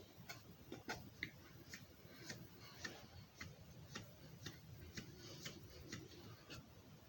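Faint, regular ticking, about two ticks a second, over a low hum.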